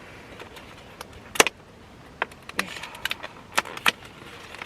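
Plastic sushi packaging being handled, giving a series of sharp clicks and crinkles, the loudest about a second and a half in.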